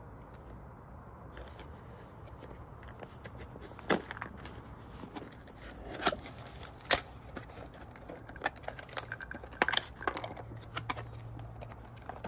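Irregular clicks and knocks of hard objects being handled by hand, with a few sharper ones about four, six and seven seconds in and a quicker run of them near the end.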